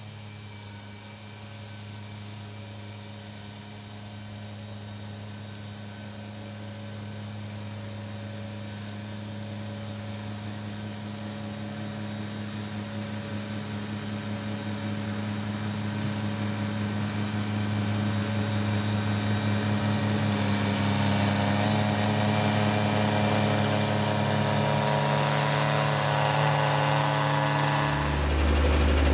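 Kubota B2601 compact tractor's three-cylinder diesel engine running under load, driving its front PTO snowblower through deep snow. The steady engine hum grows gradually louder as the tractor approaches, then turns abruptly closer and deeper near the end.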